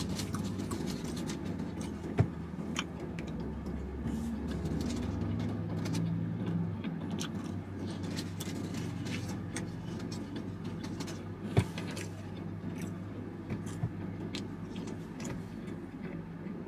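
Steady low hum of a car's engine idling, with chewing and small mouth clicks over it and two sharper clicks, about two seconds in and again near the middle.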